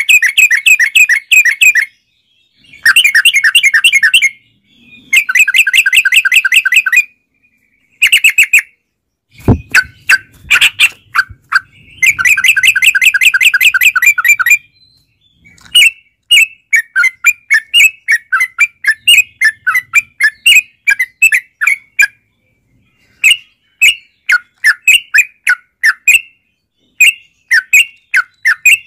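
Yellow-vented bulbul (trucukan) singing: loud bursts of rapid bubbling chatter, each two to three seconds long with short pauses between. About halfway through these give way to quicker strings of short separate notes. A single knock sounds about nine seconds in.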